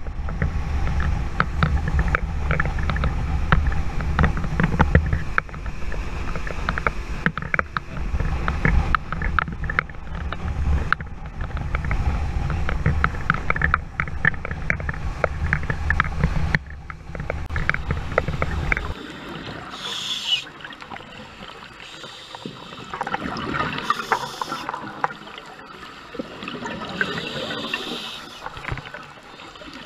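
Small dive boat under way, its engine running with a steady low rumble and scattered knocks. About 19 seconds in the sound changes to underwater, where bubbles from a scuba diver's regulator gurgle.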